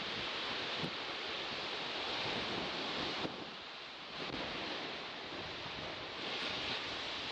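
Sea waves washing on the shore, a steady rush that swells and eases, dipping briefly a little past three seconds in and swelling again near the end.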